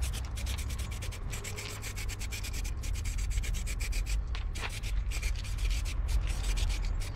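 Aerosol can of spray primer hissing in short bursts as it is sprayed onto a fibreglass patch on a kayak hull.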